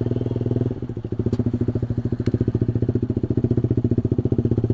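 Honda CB150R single-cylinder motorcycle engine running at low revs while the bike is ridden at walking pace, with a steady rapid firing pulse. The engine eases off briefly a little under a second in, then picks up again.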